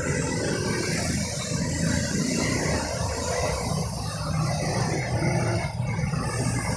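A motor vehicle engine running, a steady low hum with traffic-like noise over it.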